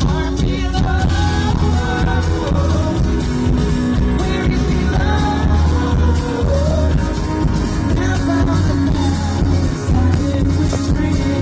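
A live rock band playing on stage, with a singer's voice carried over the band.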